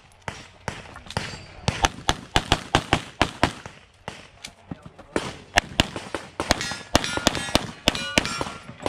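Rapid pistol fire from a Sig Sauer P320 X5 Legion shooting a competition stage, mostly in quick pairs, with a short pause a little before halfway as the shooter moves. In the second half, hit steel targets clang and ring.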